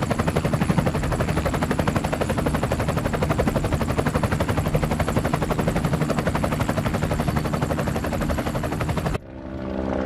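A loud, rapid, steady rattle of sharp pulses over a low drone, cutting off abruptly about nine seconds in and giving way to a steadier engine-like drone.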